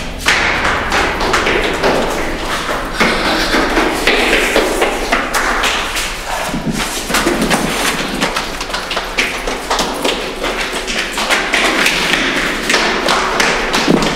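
Running footsteps on concrete stairs and a hard corridor floor: rapid thuds and taps, several a second, without a break.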